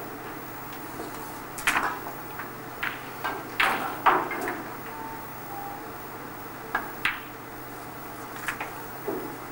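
Snooker balls clicking: the cue tip striking the cue ball and the balls knocking together as shots are played and a red is potted. There is a cluster of sharp clicks in the first four seconds, more about seven seconds in, and a low hum underneath.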